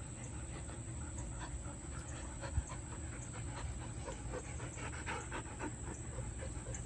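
Huskies panting quickly and rhythmically after play, with one low thump about two and a half seconds in.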